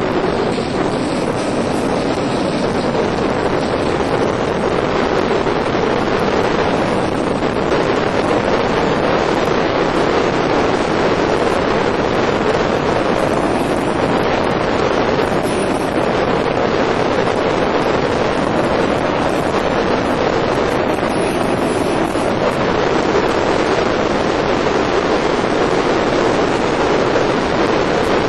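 Steady rush of wind buffeting the microphone, with water rushing along the hull, as a fishing boat runs across the lake at speed.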